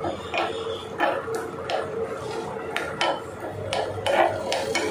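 Steel spoon stirring cashews frying in a small iron kadai: irregular clinks and scrapes of metal against the pan, over a steady hum.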